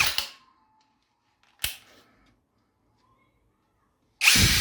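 INGCO 66 Nm brushless cordless impact drill running free in short trigger bursts: one spins down just after the start, a single sharp click comes about a second and a half in, and the motor spins up again near the end.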